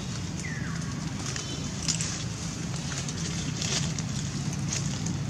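Dry leaf litter crackling as macaques shift about, over a steady low hum, with one short falling chirp about half a second in.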